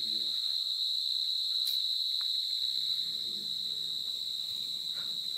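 Steady insect chorus: one shrill, unbroken high-pitched tone, with faint human voices under it.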